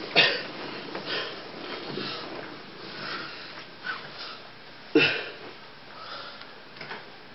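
Handling noise as a puppet is set down and another picked up: rustling and breathy sniffs, with a sharp knock about five seconds in.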